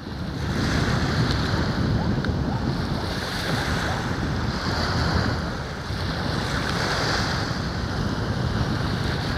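Wind buffeting the microphone, with a steady rush of surf beneath it.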